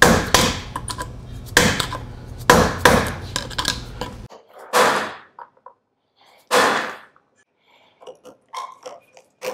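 Screwdriver prying at the retaining clips on a driveshaft U-joint's rusty bearing caps: metal grating and clicking against metal for about four seconds, then two sharp metallic clinks and a few light clicks as the clips are worked out.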